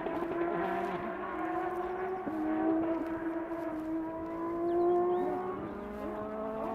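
Rally car engine heard approaching, a sustained high engine note climbing slowly in pitch as it accelerates, then several quick up-and-down rev swings near the end.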